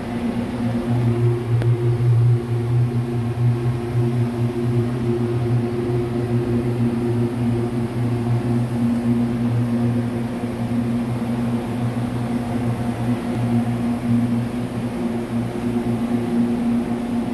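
Steady low mechanical hum of running workshop machinery, a drone with a few held pitched tones that does not change.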